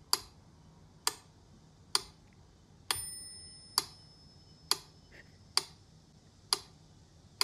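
Mechanical pendulum metronome ticking steadily, about one sharp tick every 0.9 seconds, with a bell ding on the accented beat about three seconds in.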